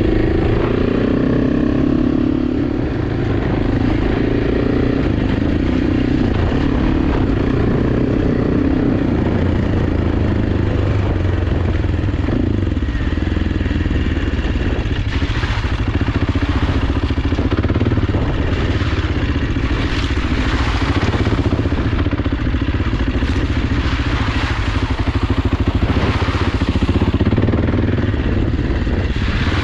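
AJP PR7 adventure motorcycle's single-cylinder engine running on an off-road ride, its pitch rising and falling with the throttle. In the second half, short bursts of clatter and rattling break in every second or two over the engine.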